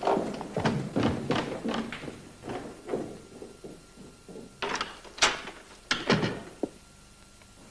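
A run of knocks, thuds and scuffing, then three sharper clacks about five to six seconds in.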